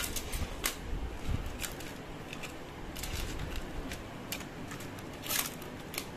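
Jewellery and its clear plastic packets being handled: irregular light clicks and crinkles, with the loudest cluster a little before the end.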